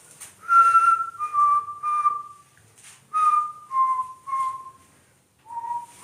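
Whistling: a string of short single notes in a tune-like run, each dipping slightly in pitch, with a short pause about five seconds in. A faint steady high whine runs underneath.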